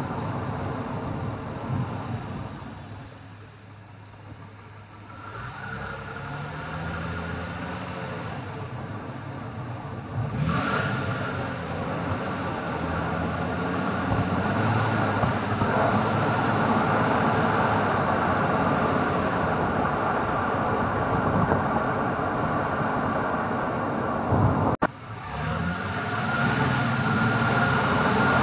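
Road noise from a 2010 Lexus IS250 being driven on a city road, picked up beside the front wheel: tyres rolling on pavement under a steady rush. The car goes quieter a few seconds in, then its engine note rises as it pulls away again. The sound cuts out for an instant near the end.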